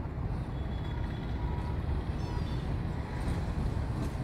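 WDM-3A diesel locomotive approaching, its engine giving a steady low rumble.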